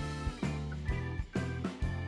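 Background music with a steady beat, notes striking together about twice a second over a sustained bass.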